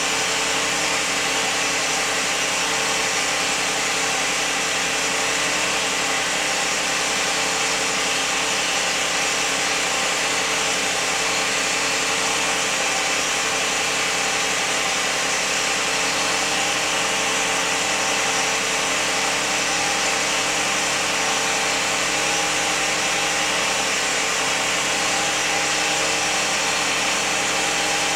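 2001 Lexus RX300's 3.0-litre V6 running steadily with a constant whining noise: several steady tones over a hiss, with no change in speed or pitch.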